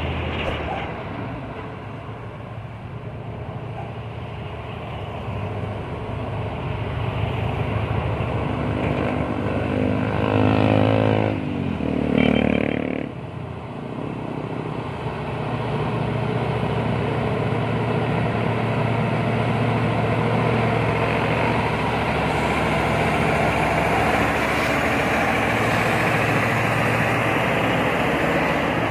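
Heavy trucks' diesel engines running as they climb a hill road. A truck comes close and its drone grows louder and steady in the second half, with a brief loud pitched sound near the middle.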